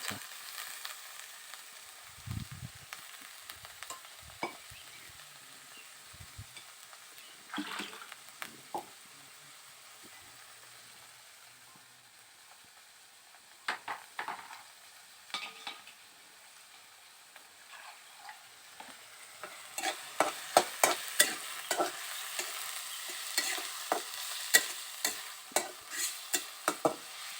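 Onions and green chillies frying in oil in a pan, with a steady sizzle and the scattered scrapes and clicks of a spoon stirring. The stirring grows busier and louder about two-thirds of the way through.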